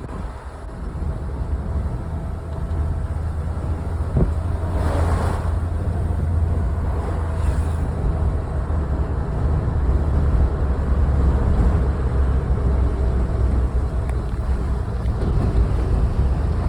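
Strong wind buffeting the microphone over the steady low drone of a vehicle moving along the road, with a stronger gust about five seconds in.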